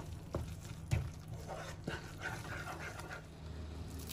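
Wooden spatula stirring thick mushroom masala in a non-stick pan, with a few sharp knocks of the spatula against the pan in the first two seconds and soft wet scraping and squelching after.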